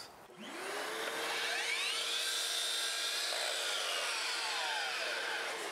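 Makita sliding miter saw spinning up just after the start, running steadily at speed as it cuts a length of window casing trim, then winding down near the end.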